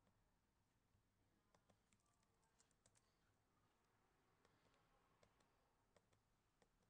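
Near silence: faint room tone with about a dozen faint computer mouse clicks scattered through it, some in quick pairs.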